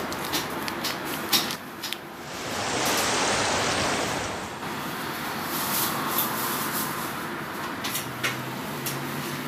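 Steady hum of a small café kitchen with a fan-like hiss, broken by scattered clicks and knocks of utensils and handling. A swell of hissing noise rises and fades about two to four seconds in.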